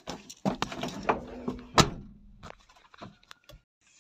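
Knocks and clunks of someone climbing into and settling in a Tata Ace mini-truck's cab, with the loudest thunk about two seconds in and a few lighter taps after.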